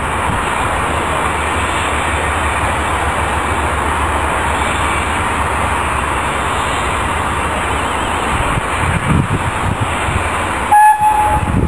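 Small steam tank locomotive's whistle giving one short, clear toot about eleven seconds in, over a steady hiss.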